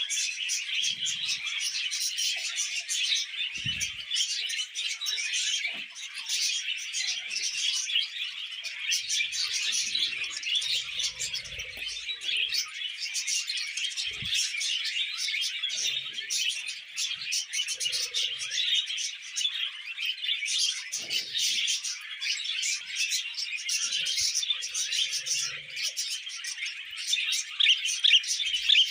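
Budgerigars warbling and chattering in a dense, unbroken stream of quick high chirps.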